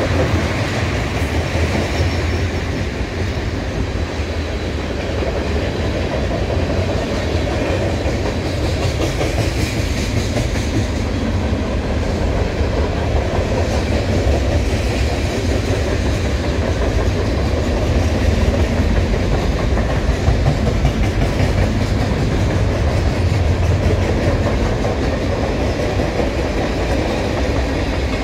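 Freight train of tank cars rolling steadily past, a continuous rumble of wheels on rails.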